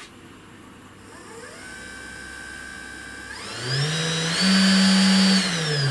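Spindle of a SainSMART Genmitsu PROVerXL 6050 Plus CNC router, with a freshly fitted V-bit, spinning up: its whine steps up in pitch in stages, holds steady at its loudest, then steps back down near the end. This is a test run to check that the bit sits square and is not out of balance.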